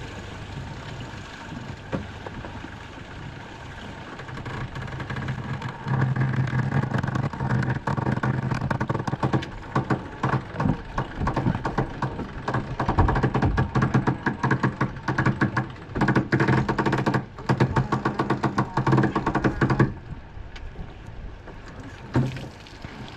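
Sailboat winch hauling in the spinnaker halyard under load to hoist the inflatable dinghy aboard: a steady mechanical hum with rapid clicking that starts about six seconds in and stops near twenty seconds.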